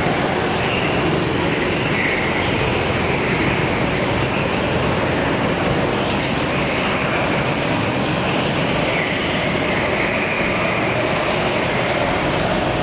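Several go-kart engines running together at racing speed: a steady, dense drone whose pitch wavers as the karts accelerate and pass.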